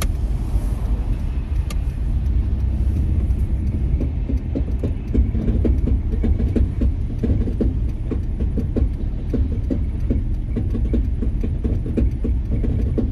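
Four-wheel-drive truck's drivetrain popping repeatedly during a sharp right turn, a run of short pops over the steady rumble of the engine and road from about four seconds in. A coworker puts the cause down to driving in four-wheel drive on clear, dry roads, which binds the drivetrain in tight turns.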